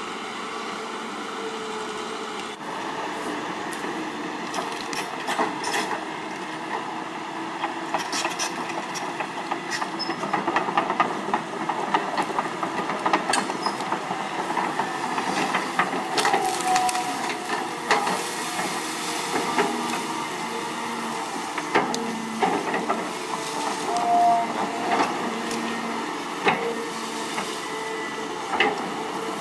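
Caterpillar 320D hydraulic excavator working: its diesel engine runs steadily under load with hydraulic hiss and whine, while the bucket knocks, scrapes and cracks through earth and tangled roots in scattered short bangs, more frequent after the first several seconds.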